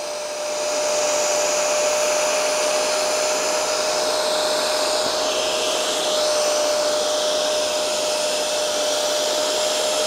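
Hoover PowerDash GO Pet+ portable carpet spot cleaner running, its motor holding a steady tone under the hiss of suction as the hand wand sprays solution and draws it back up out of the carpet. It gets slightly louder about half a second in, and the pitch of the hiss dips briefly around the middle as the wand moves over the stain.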